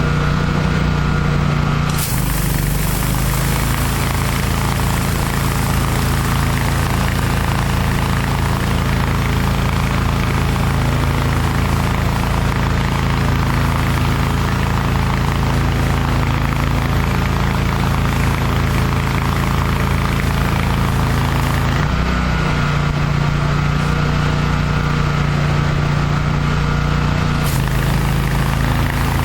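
30 hp Kohler engine of a Hydro Tek hot water pressure washer running steadily, with the hiss of a high-pressure water spray starting about two seconds in, stopping about three-quarters of the way through, and starting again near the end.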